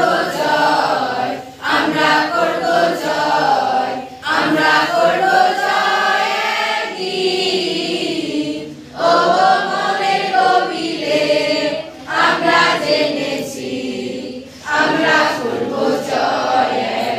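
A group of voices singing together, in phrases of a few seconds with short breaks between them.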